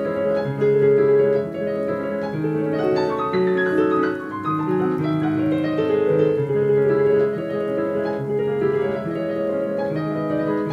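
Piano music playing through a pair of Edifier S1000W wireless bookshelf speakers: an unbroken flow of melody and chords.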